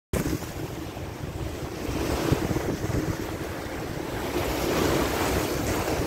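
Sea waves breaking and splashing against concrete breakwater blocks, a continuous surging wash, with wind buffeting the microphone.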